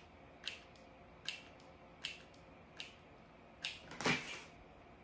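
Light clicks from a mini hot glue gun and seashell being handled during gluing: five sharp clicks about one every three-quarters of a second. About four seconds in comes a louder, brief clatter, the loudest sound in the stretch.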